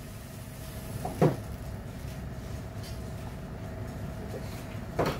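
A kitchen cupboard door knocking about a second in, with a second knock near the end, over a steady low hum. The cupboard is opened while fetching the spices for the sauce.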